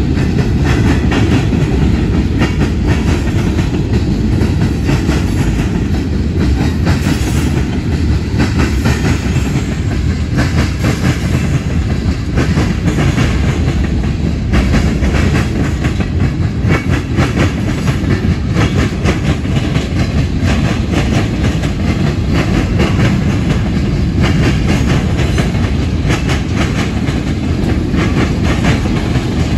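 Freight cars of a manifest train rolling past close by: a steady, loud rumble of steel wheels on the rails, with frequent clicks and clatter from the wheels and cars.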